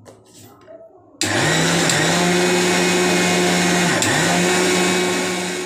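Electric mixer grinder grinding soaked rice into flour in its stainless-steel jar. The motor starts about a second in, runs loud and steady with its speed dipping briefly twice, and begins to wind down near the end.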